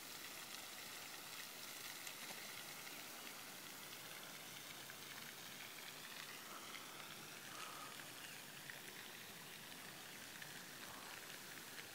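Floating pond fountain's spray falling back onto the water: a faint, steady splashing hiss.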